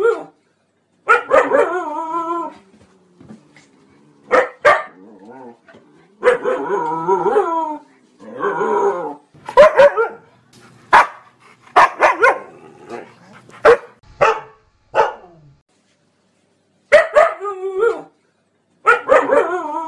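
Siberian husky barking in irregular bouts, some barks drawn out into longer wavering calls. A pause of about a second comes near the end before the barking resumes.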